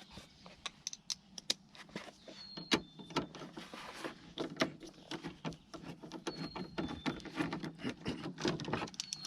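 Irregular small clicks and metallic taps of a T30 Torx bit in a hand tool working out the two screws that hold a truck door handle, with a couple of brief faint squeaks.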